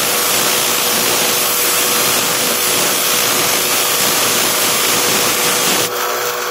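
A powered sharpening grinder's motor runs with a steady hum while the AK-47 bayonet blade is held to the abrasive, giving a continuous grinding hiss that stops near the end while the motor keeps running.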